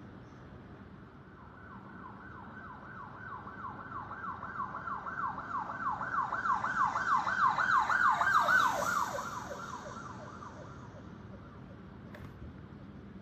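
Emergency-vehicle siren sound effect sounding a fast, repeating yelp, about three up-and-down sweeps a second. It grows louder to a peak about two-thirds of the way through, then fades away.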